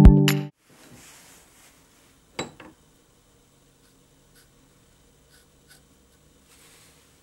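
Music cuts off about half a second in. After that comes the faint scratch of a fine-tip pen marking lines on the end grain of a small piece of wood, with one sharp click about two seconds in.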